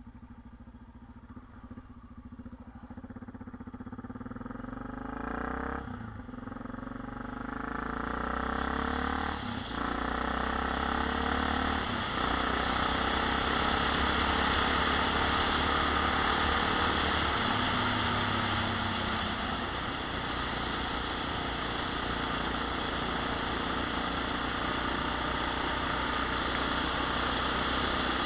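Motorcycle engine pulling away and accelerating, with two short breaks at gear changes in the first ten seconds. It then runs steadily at cruising speed, with wind noise on the microphone growing louder.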